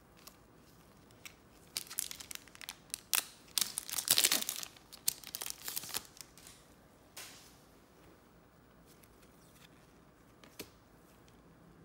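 Trading card pack wrapper being torn open and crinkled, a run of tearing and crackling that is loudest for a couple of seconds and then dies down to a few small clicks.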